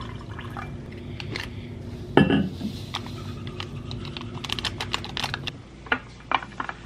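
Water poured from a Hydro Flask steel bottle into a glass tumbler, with a thump about two seconds in. Then a stick packet of drink-mix powder is tapped and crinkled over the glass in a run of quick clicks, and the drink is stirred.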